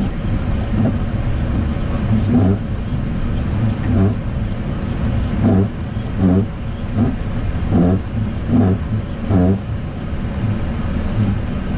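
Flight-deck rumble of a Boeing 737-800 rolling slowly on the runway after landing, with the windshield wipers sweeping the rain-wet windscreen. Each stroke is a short squeaking swish, roughly once a second.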